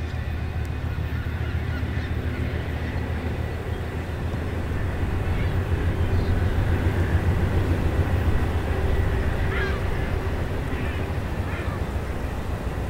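Low, steady rumble of an Amtrak California Zephyr's bilevel Superliner cars rolling away on the tracks, swelling a little in the middle. A few short bird calls come in near the end.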